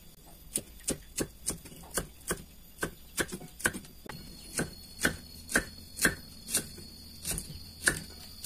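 Knife slicing baby corn on a wooden cutting board: a sharp tap of the blade through the cob onto the board with each cut, about two to three cuts a second in an even rhythm.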